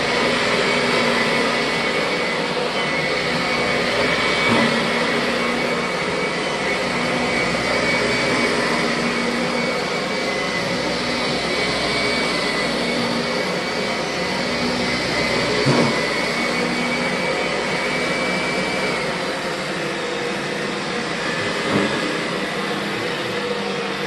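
Kirby upright vacuum cleaner running smoothly, a steady motor hum with a faint high whistle. About 19 seconds in the sound drops a little and the whistle stops as the motor is switched to low speed.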